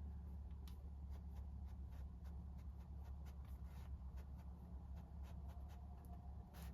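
Pen writing on paper during note taking: quick, irregular scratches and taps, with a slightly louder stroke near the end, over a steady low background rumble.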